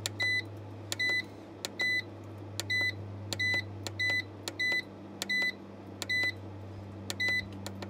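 MPP Solar LV2424 inverter's control panel beeping at each button press as its display menu is stepped through: about ten short, high beeps, each with a small click from the button, over a steady low hum.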